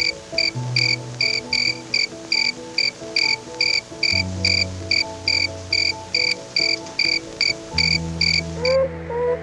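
Cricket chirping in an even pulse of about three short high chirps a second, stopping shortly before the end, over soft background music with slow sustained low notes. A gliding animal call begins just as the chirps stop.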